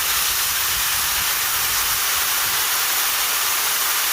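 Strong jet of air blowing with a loud, steady hiss, holding up a screwdriver in its stream.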